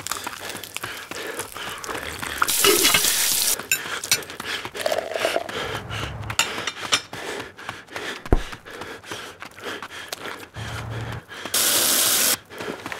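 Egg frying in butter in a non-stick pan, sizzling and crackling, among a run of short clicks and knocks. Two short bursts of loud hiss come about two and a half seconds in and near the end.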